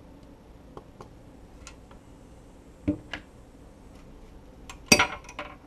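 Glass wine bottle, just cracked through along its score line, being handled and pulled apart: scattered light glass clicks, then a louder cluster of clinks and knocks about five seconds in as the pieces separate.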